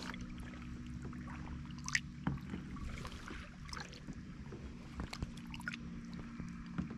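Faint water sloshing and a few small splashes and light knocks as a largemouth bass is held in the water against the kayak's hull before release, over a steady low hum.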